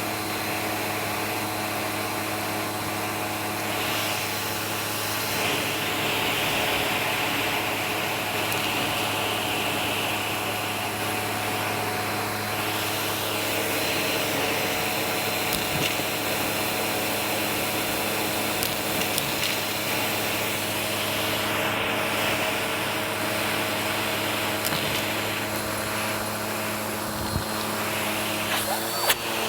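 Vacuum cleaner running steadily over carpet, picking up carpet freshener powder: a constant motor hum under an airy hiss that swells and fades every few seconds.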